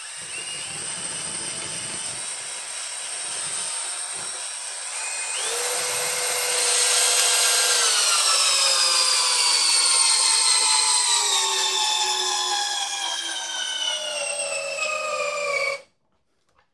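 DeWalt XR cordless drill, in low speed and drill mode, driving a large lag screw into a wooden beam with no pilot hole. The motor whines steadily, steps up in pitch and loudness about five seconds in, then slowly drops in pitch as it slows under the rising load. It stops abruptly near the end.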